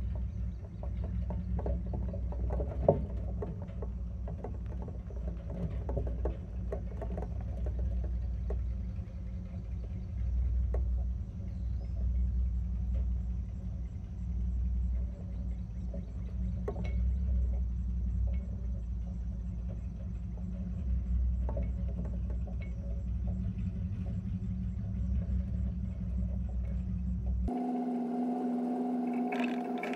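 Low road rumble and scattered rattles and knocks of a boat riding on its trailer while towed behind a pickup truck, heard from the boat's deck, with one sharper knock a few seconds in. Near the end it cuts off suddenly to a steadier sound with several held tones.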